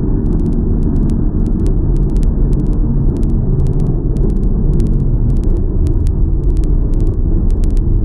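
Truck air horn held in one long, loud, steady blast.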